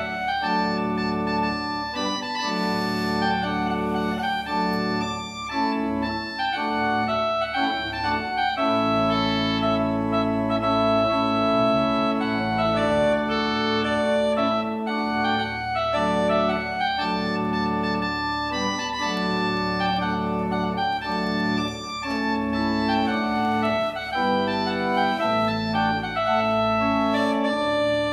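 Organ playing slow, sustained chords that change every second or two, one chord held longer about a third of the way through.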